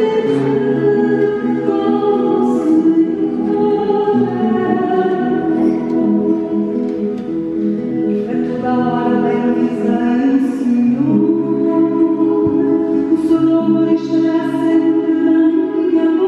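A choir singing slow, held chords in several voice parts.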